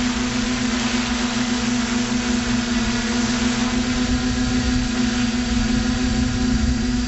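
A drone's electric motors and propellers humming steadily in flight, heard up close through the onboard camera, with a constant low hum, higher whine lines and rushing air noise.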